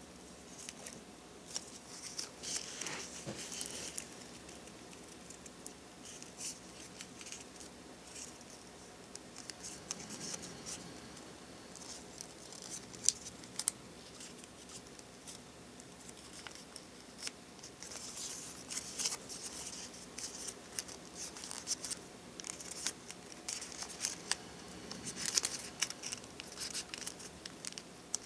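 Origami paper crinkling and crackling as fingers fold and press creases, in scattered clusters of crisp rustles and sharp clicks.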